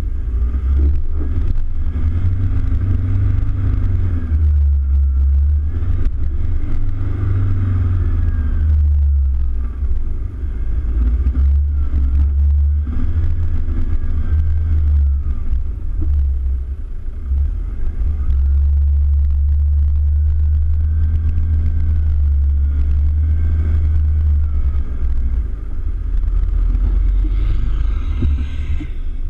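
Toyota Hilux Vigo pickup driving over soft sand dunes, heard from the hood-mounted camera: a loud, continuous low rumble, with a faint whine that rises and falls several times as the engine works.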